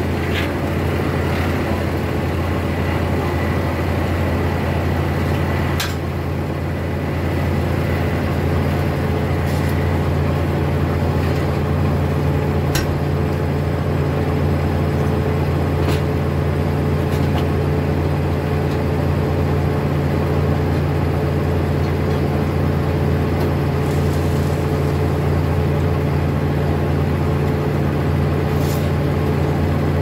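Foley Belsaw circular sawmill running, a steady low drone from its drive and spinning blade as it saws a log on the carriage, with a few faint ticks along the way.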